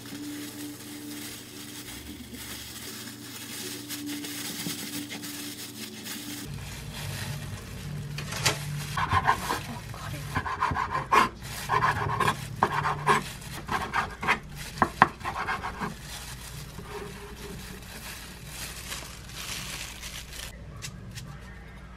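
Kimbap being rolled in a bamboo mat by plastic-gloved hands, then sliced with a kitchen knife on a wooden cutting board. The knife crunches through the seaweed-wrapped roll and taps the board in a run of sharp cuts from about eight seconds in until about sixteen seconds in.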